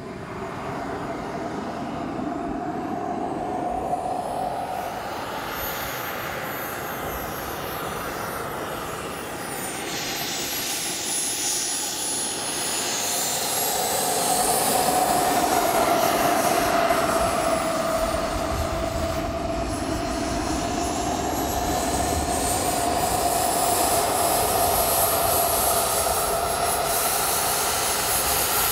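Small gas turbine of a radio-controlled model jet running at taxi power, a high whine that rises and falls in pitch with the throttle over a steady rushing tone. It grows louder as the jet taxis closer.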